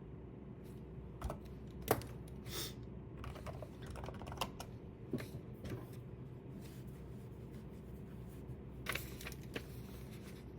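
Irregular light clicks and taps at a desk over a faint steady room hum, the loudest tap about two seconds in.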